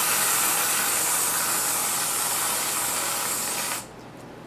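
Aerosol can of whipped cream spraying in one long, steady hiss, which cuts off suddenly near the end as the nozzle is released.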